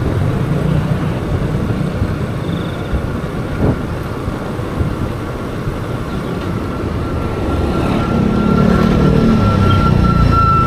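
Riding noise on a Suzuki Burgman Street 125 EX scooter at low speed: the scooter's small single-cylinder engine running under wind rumble on the microphone. Other motorbikes pass close by near the end and the noise grows louder.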